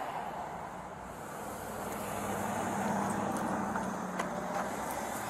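Road traffic: a motor vehicle passing on the road, its engine hum and tyre noise swelling about two seconds in.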